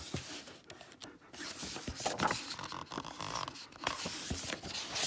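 Pages of a hardcover picture book being turned: paper rustling and scraping, with a few short taps along the way.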